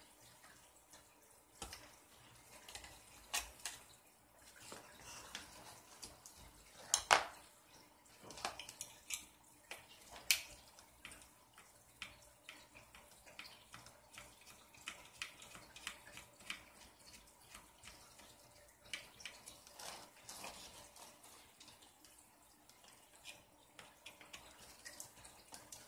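Faint, scattered clicks and taps of small plastic and metal RC buggy parts and hand tools being handled as the car's rear end is taken apart, the sharpest click about seven seconds in.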